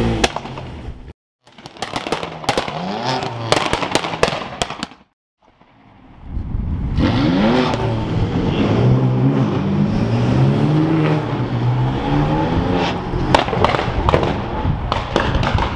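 Sports car engines revving and accelerating away, with sharp exhaust pops and crackles. The sound breaks off twice, briefly, about a second in and again around five seconds in.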